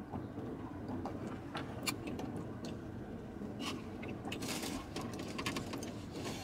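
Someone eating chicken wings over a foam takeout box: chewing with scattered small clicks, scrapes and crinkling of plastic and napkins, busiest a few seconds in. A steady low hum in the car cabin runs underneath.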